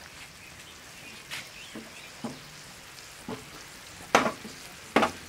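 Metal spoon scraping and knocking against a stainless-steel pan of rice filling, in about six short strokes, the loudest about four seconds in, over a faint steady sizzle.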